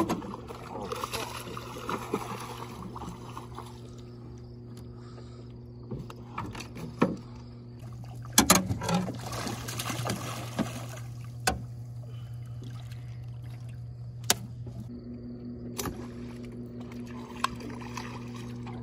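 Bowfishing from a jon boat: several sharp clicks and splashes as arrows are shot into the water, with a hit fish thrashing at the surface about halfway through. A steady low hum runs underneath.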